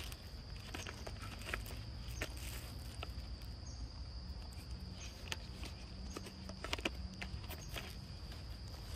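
A steady high-pitched insect drone, with scattered soft clicks and rustles and a low rumble underneath.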